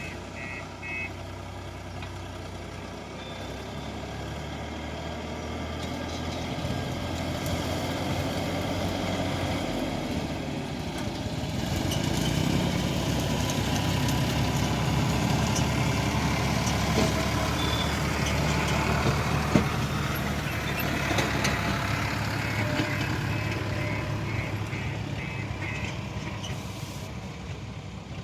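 Diesel engines of a JCB 3DX backhoe loader and a tractor running steadily, swelling louder midway as the loader works. A reversing alarm beeps in quick pulses near the end, and there is a single sharp knock about two-thirds through.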